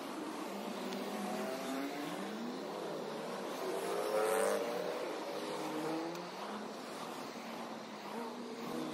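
Road traffic passing close by: cars driving past, their engine and tyre sound rising and falling in pitch. The loudest pass comes about four seconds in.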